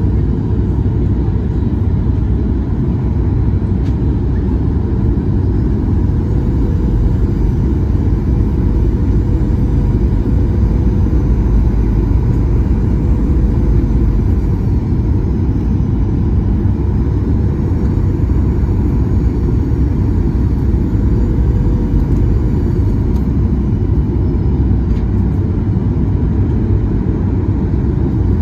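Steady cabin roar of a Boeing 737-800's CFM56 engines and rushing airflow, heard from a window seat over the wing on final approach, with a steady hum near 500 Hz running through it.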